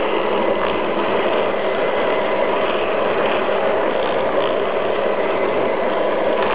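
Garden-scale model train running along the track, its motor gears and wheels making a steady whirring rattle with a few faint clicks, picked up close by a camera riding on the train.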